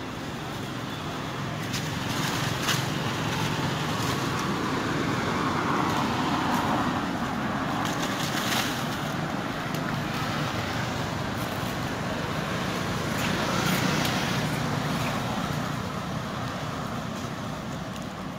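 Road traffic going by: engine and tyre noise that swells and fades as vehicles pass, loudest a few seconds in and again about two thirds of the way through, with a few light clicks.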